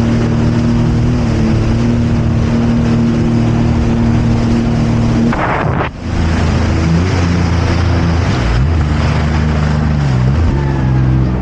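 Jet ski engine running at speed, with wind blowing on the microphone. About halfway through, the engine note breaks off and comes back lower, rising and falling unevenly.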